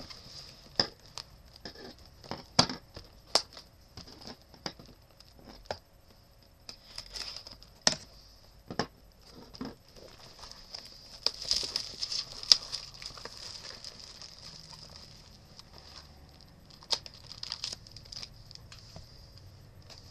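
Plastic wrapping crinkling and tearing as a box of trading cards is unwrapped and opened, with scattered sharp crackles and snaps and a denser run of crinkling around the middle.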